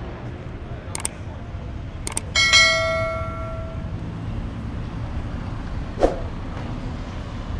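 A single metallic ring, struck once about two and a half seconds in and fading over about a second and a half, over a steady low rumble of street traffic, with a few sharp clicks before and after.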